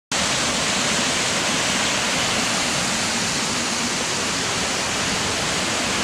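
Small waterfall cascading over stepped rock ledges into a shallow pool: a steady, even rush of falling water.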